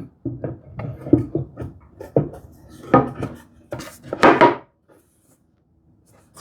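Irregular knocks and clinks of wooden parts and small metal hardware being handled and set down, stopping about four and a half seconds in.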